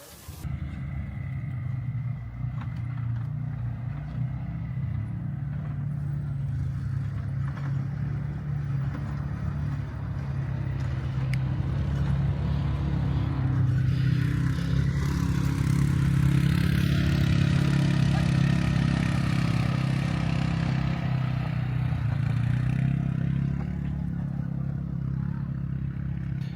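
A vehicle's engine running steadily while driving, with road noise. It grows louder about halfway through and eases off again near the end.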